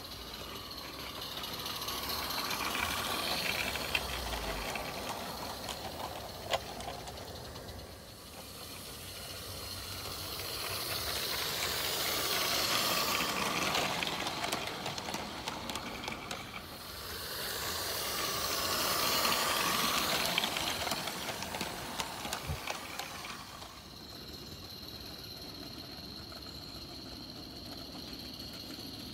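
Small Accucraft live-steam garden-railway locomotive running with its train: steam hiss and exhaust with wheels rattling over the track, swelling and fading three times as it passes close by, then quieter near the end.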